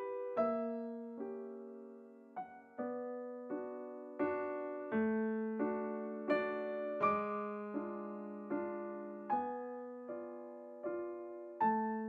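Background piano music: slow chords struck about every three-quarters of a second, each ringing and fading before the next.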